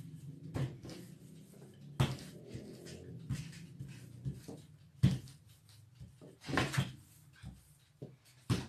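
Wooden rolling pin rolling out a sheet of dough on a countertop: a low rumble of rolling with several sharp knocks of the pin against the counter, the loudest about five seconds in.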